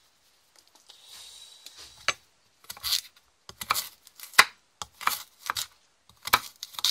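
Knife chopping sweet potato on a wooden chopping board: about eight sharp chops at an even pace, starting about two seconds in.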